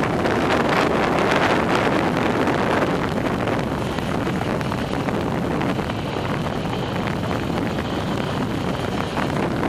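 Steady rush of wind over the microphone of a camera carried on a moving track bike, the noise of riding at speed around a wooden velodrome.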